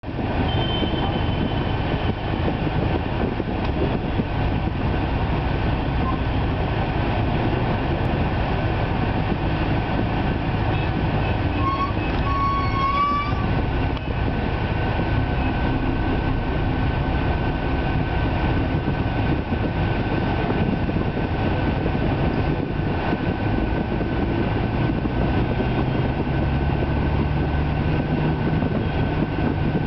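Tour bus cabin noise while driving: a steady, loud rumble of engine and road. A short high tone sounds about twelve seconds in, and a low engine note comes up near the end.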